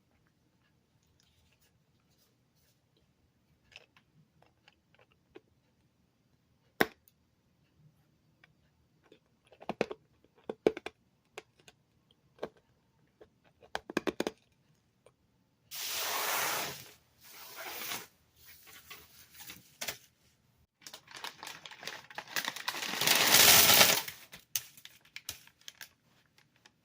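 Cough drop packaging being handled and torn open: scattered small clicks and taps, then several bursts of tearing and crinkling from about halfway through, the loudest near the end.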